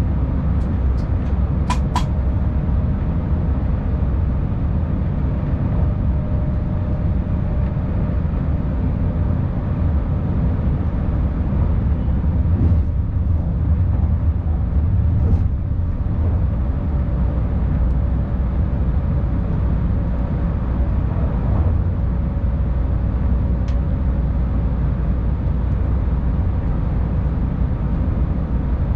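Tilting electric InterCity train running at speed, heard from the driver's cab: a steady low rumble of wheels and running gear on the track. There are a few sharp clicks about two seconds in, and a faint steady whine comes and goes.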